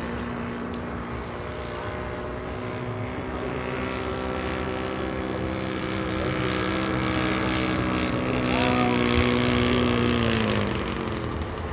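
Engine and propeller of a 1:5 scale SAI KZ II Sport radio-controlled model aircraft in flight, a steady drone that grows louder over the second half, then drops in pitch and level about a second before the end.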